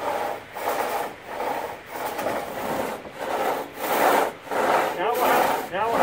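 Two-man pit saw ripping a log lengthwise, worked up and down between a sawyer in the pit and one on top: an even rhythm of sawing strokes through wood, each swelling and fading, roughly three every two seconds.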